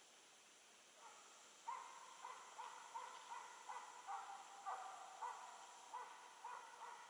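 Russian hound baying on a hare's trail: a faint run of short, falling yelps, two to three a second, beginning a couple of seconds in.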